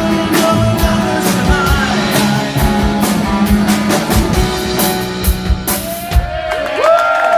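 Live rock band playing a song with drum kit, electric guitar and bass. It ends on a final crash about six seconds in, and whoops and shouts follow.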